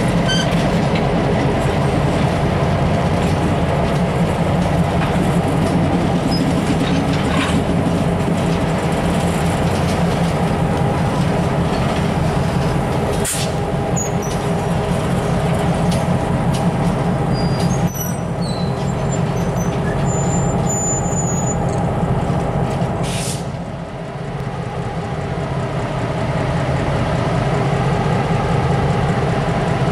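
EMD MP15AC switcher locomotive's 12-cylinder two-stroke diesel running steadily as a cut of freight cars rolls by on the rails. Two short hisses of air come about 13 seconds in and again about 23 seconds in.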